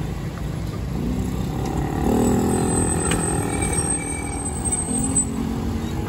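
Street traffic: motorcycles and cars passing over a steady low rumble. One engine grows louder between about two and five seconds in.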